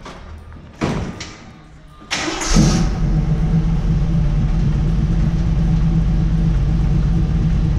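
Jeep CJ-7 engine cranked and started, catching about two and a half seconds in after a brief burst of noise about a second in, then idling steadily through a newly fitted pair of Borla mufflers.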